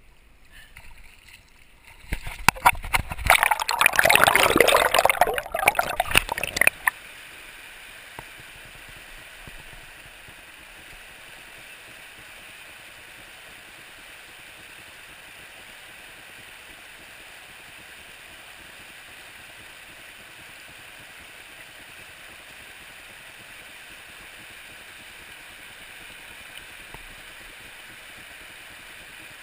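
Steady rush of river water running over a stony riffle. Near the start comes about five seconds of loud, close splashing and knocking.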